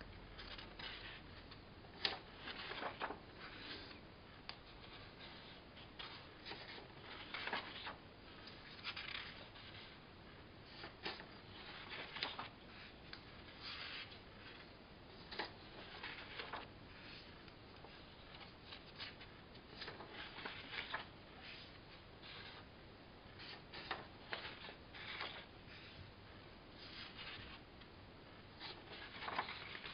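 Faint, irregular rustling and scratching handling noise, short bursts coming about every second or two.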